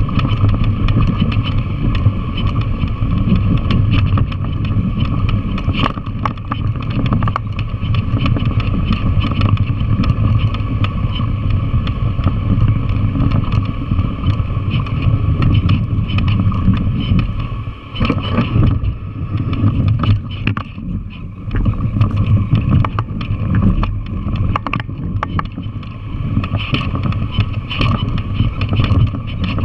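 Yamaha TW200's single-cylinder four-stroke engine running steadily as the bike rides a loose, rocky dirt trail, with frequent rattles and knocks from the bike jolting over the rocks. The engine note drops briefly about two-thirds of the way through as the throttle eases off.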